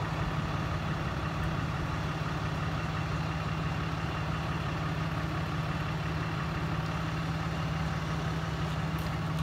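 A vehicle engine idling: a steady, low hum that holds an even pace and level.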